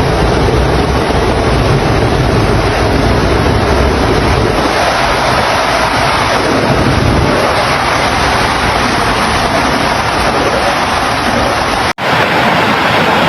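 Floodwater rushing, a steady loud wash of water noise that cuts out for an instant near the end and then resumes.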